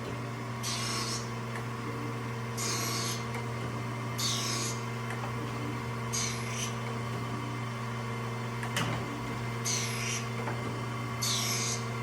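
Acer AGS-1224-AHD hydraulic surface grinder running: the spindle hums steadily while the grinding wheel hisses briefly each time the reciprocating table carries the part under it, about every one and a half to two seconds, with a longer gap past the middle.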